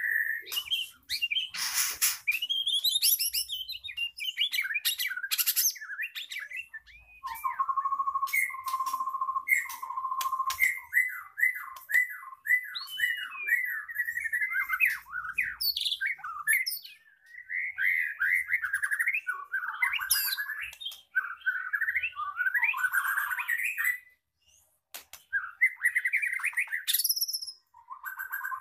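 A pied (blorok) white-rumped shama, a murai batu in moult, sings a long, varied song of whistles, buzzy rattles and sharp calls. About seven seconds in come three steady low whistles, then a fast run of down-slurred notes.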